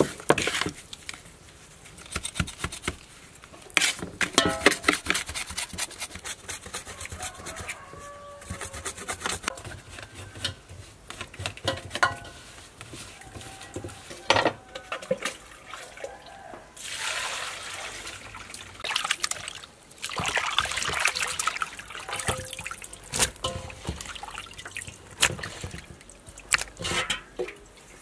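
Hands rubbing and squeezing salted tongue fish in a metal bowl: wet, slippery squelching with many small knocks against the bowl, while the fish are washed with salt to clean them. Past the middle there are two longer spells of splashing water as the fish are rinsed.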